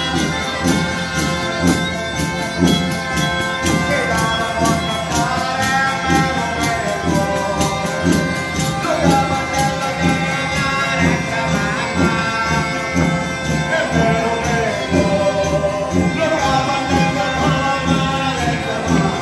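Live southern Italian folk dance music: a zampogna bagpipe holding a steady drone under violin and a small pipe playing the tune, with guitar and a tambourine beating a steady dance rhythm.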